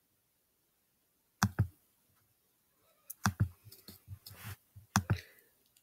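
Sharp computer pointer clicks, mostly in quick pairs: one pair about a second and a half in, another about three seconds in followed by a few lighter ticks and a brief rustle, and a last pair about five seconds in.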